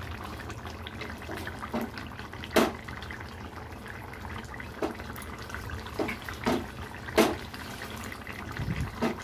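A thin fish curry simmering in a metal kadai: a steady bubbling hiss with about six short, sharp pops spread through it.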